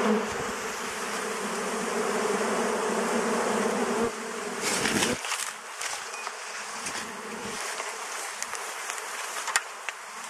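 Honeybees buzzing around open wooden beehives, a steady hum that drops away about halfway through to a fainter buzz, with a few clicks and a sharp click near the end.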